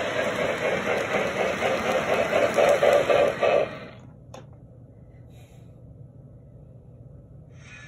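Lionel O27 toy steam train running on its track with a rapid rhythmic beat of about five a second, which cuts off suddenly about halfway through. A single click follows, then only a faint steady hum.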